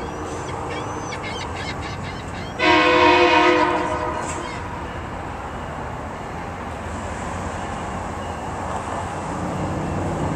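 Commuter Rail locomotive's air horn sounding one loud blast of about a second and a half, a chord of several tones, about two and a half seconds in, over the steady rumble of the approaching train; a second blast starts right at the end.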